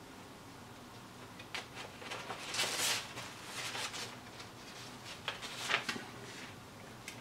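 Paper instruction sheet rustling and crinkling as it is handled and turned over, in a run of irregular bursts from about a second and a half in until near the end, loudest around three seconds in and again near six.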